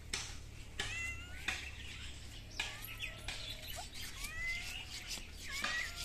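Domestic cat meowing several times in short, gliding calls.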